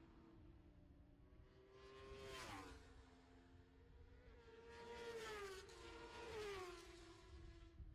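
Distant superbike racing motorcycle engines, faint, their high-revving buzz rising and falling in pitch several times, with a drop about two and a half seconds in and a stepped fall through the second half.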